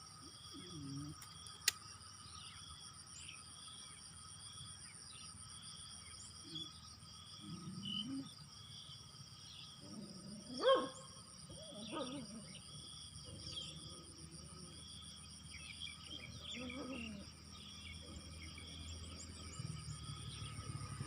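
Insects droning steadily in several high tones, with a short chirping call repeating about every two-thirds of a second. A few brief low knocks or splashes sound through it, the loudest about ten seconds in.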